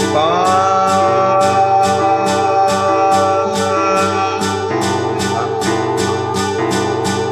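Amateur recorded music: a held chord that bends up into pitch at the start and then holds, over a repeating low bass pattern and a steady tick about two and a half times a second.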